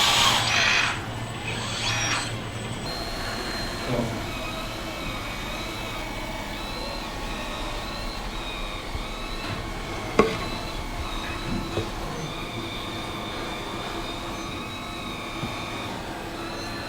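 High-pitched, slightly wavering whine of radio-controlled model construction machines' electric drives working, with a sharp click about ten seconds in.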